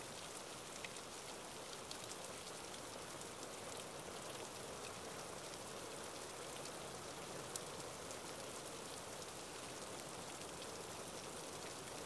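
Steady rain falling, with scattered single drops ticking close by.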